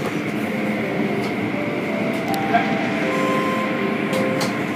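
Automatic tunnel car wash running: spinning cloth brushes and wash machinery make a steady mechanical noise, with faint motor hums that come and go.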